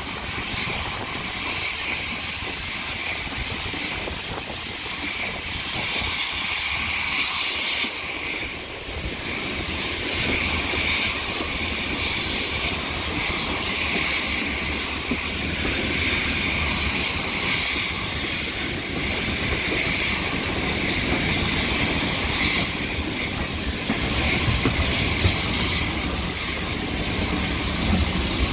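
Steam locomotive working, with a steady hiss of steam and a low rumble that grows after about eight seconds.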